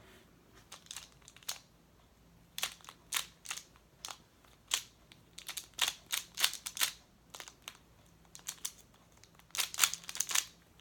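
Moyu magnetic Skewb being turned during a speed solve: irregular runs of sharp plastic clicks as the puzzle's halves twist, coming thickest near the end.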